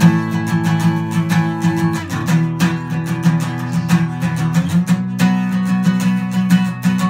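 Steel-string acoustic guitar strummed solo in an instrumental passage, the chord changing about two seconds in and again about five seconds in.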